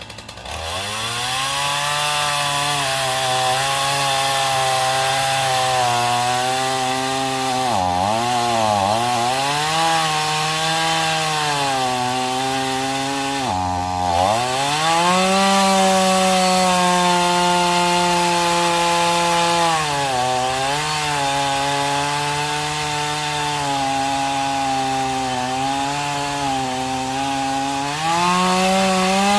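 Chainsaw revving up and cutting through the root ball of an uprooted oak at high revs. The engine pitch dips sharply twice as the chain bogs in the wood, picking back up each time.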